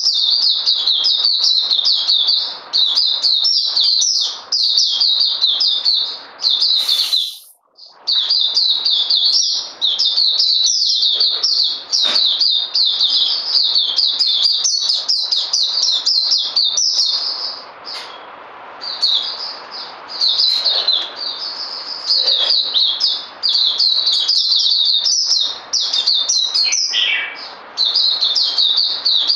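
Caged white-eyes (puteh) singing a fast, high, continuous twittering song with hardly a pause. The song breaks off briefly about seven seconds in and softens for a moment around the middle.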